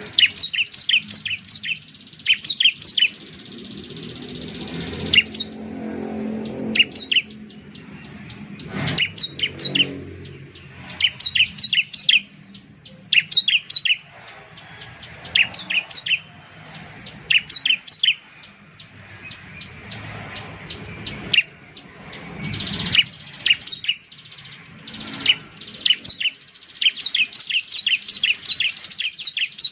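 Bar-winged prinia (ciblek) singing: repeated bursts of quick, sharp, high chirps, each burst lasting a second or two, with short pauses between them.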